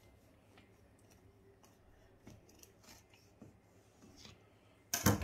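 Kitchen knife cutting through a baked pumpkin sponge cake on a gold cardboard cake board: faint scattered scrapes and crunches of the crust, then a louder burst of scraping and knocking lasting about half a second near the end.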